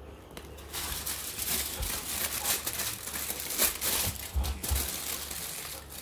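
Aluminium foil being crumpled and crinkled by hand, an irregular crackling that starts about a second in and stops just before the end.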